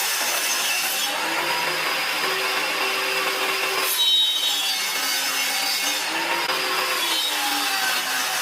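Power tool cutting into wood, a continuous rasping cut with the motor's pitch sagging and recovering as it meets load. There is a brief louder moment about four seconds in.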